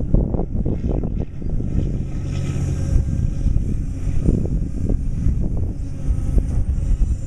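Caterpillar excavator's diesel engine running steadily, with frequent knocks and clanks from the machine working.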